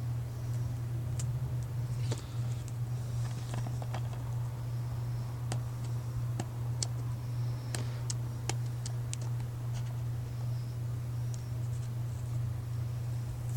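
Fingernail scratching and picking at a sticker on a plastic DVD case, with scattered small clicks and scrapes, over a steady low hum that is the loudest sound throughout.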